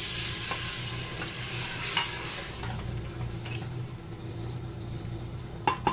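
Water poured onto hot fried dal and masala in a pressure cooker, hissing and sizzling loudly and then dying down over a few seconds while a wooden spoon stirs it; a few sharp knocks on the pot near the end.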